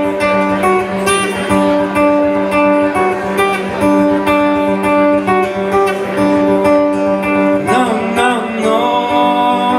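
Live band playing the instrumental intro of a song: an acoustic guitar picks a repeating pattern over a steady held low note, and a voice joins near the end.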